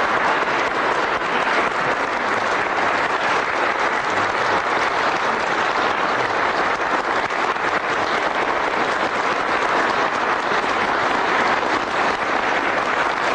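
Crowd applauding steadily, a dense unbroken clapping that holds at an even level throughout.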